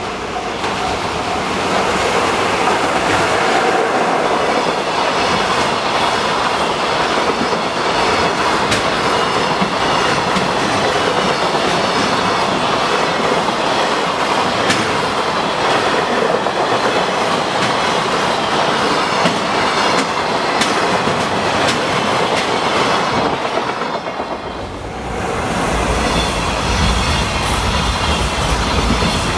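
A freight train passing close by at a level crossing: a loud steady rumble of wagons with wheels clacking over the rail joints and some wheel squeal. About 24 seconds in the sound dips briefly, then comes back with a heavier low rumble.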